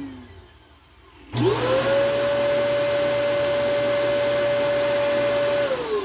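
Kyowa canister vacuum cleaner switched on about a second in. The motor spins up with a quickly rising whine and settles into a steady run, then is switched off near the end and winds down with a falling pitch. This is a test of the on/off switch, which had been cutting the motor out and has been lubricated with WD-40.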